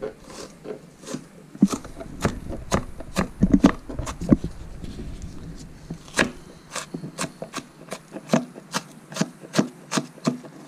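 Chef's knife dicing an onion on a plastic cutting board: a steady run of sharp knocks as the blade hits the board, about three a second.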